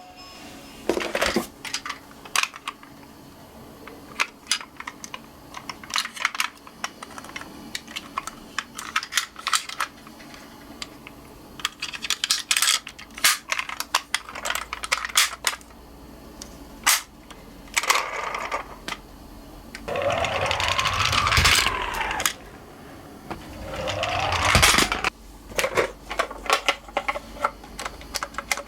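Toy ambulance and police minicars clattering down a slope, with many small scattered clicks and knocks. Twice, about two-thirds of the way through and again a few seconds later, a toy electronic siren sounds briefly, its pitch rising and falling.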